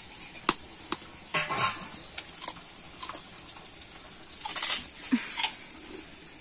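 Sliced onions frying in oil in a karahi: a steady sizzle with scattered sharp pops and crackles.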